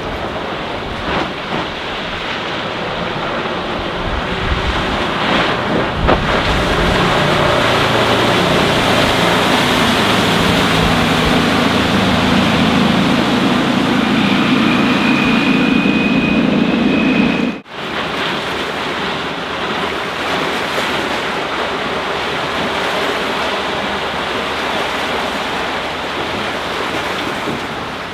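A Finnmaster 7050 motorboat with a Volvo Penta D3 diesel runs at speed across the water, wind buffeting the microphone. Its engine hum and the rushing of its wake build up through the middle, then cut off suddenly about two-thirds of the way in. A steadier rush of wind and water follows.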